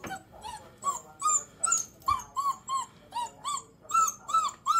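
Five-week-old puppy whimpering in a steady string of short high cries, about two or three a second, each rising and falling in pitch, louder near the end. The whimpers come as the puppy balks at going down stairs for the first time.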